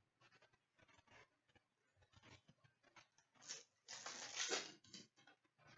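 Faint handling of hockey trading cards: soft rustles and small ticks as cards are set down and picked up, with a louder sliding rustle about four seconds in.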